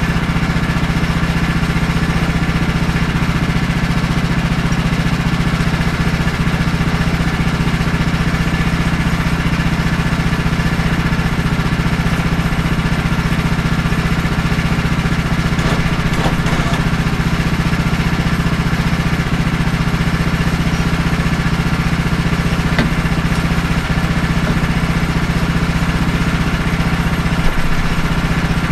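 Woodland Mills portable bandsaw sawmill's engine running at a steady speed while the saw is not cutting, with a light knock near the end.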